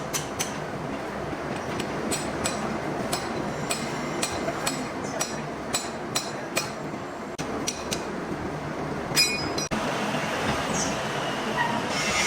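Irregular sharp metal taps and clinks over a steady din of machine-shop noise, with a quick rattle of several taps about nine seconds in.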